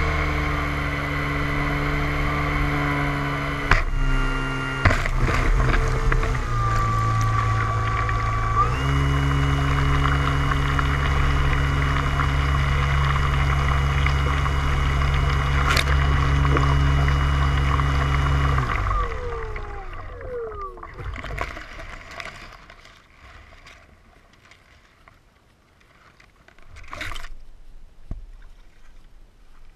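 Radio-controlled DHC-2 Beaver model floatplane's motor running steadily as it taxis on the water, changing speed a few times early on, then spinning down with a falling pitch and stopping about two-thirds of the way through. After that only faint scattered small noises remain, with one brief louder sound near the end.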